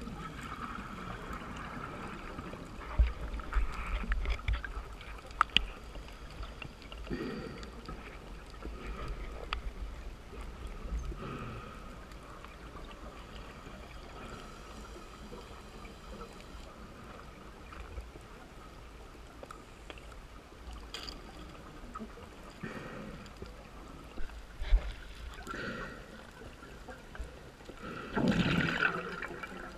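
Scuba breathing heard underwater: a steady water hiss with surges of exhaled bubbles gurgling every few seconds, the strongest near the end.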